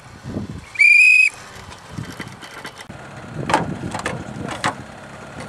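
A single short whistle blast, one steady high note lasting about half a second, about a second in. Later come a few sharp knocks as the winch hook and cable are handled at the front of the off-road vehicle.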